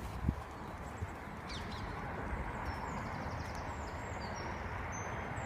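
Wind buffeting the microphone, a steady low rumbling rush. There is a single thump about a quarter second in, and faint high chirps in the second half.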